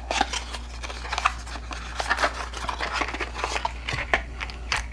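Cardboard box of .38 Special cartridges being opened by hand and its cartridge tray slid out: a run of papery rustles, scrapes and sharp little clicks, over a steady low hum.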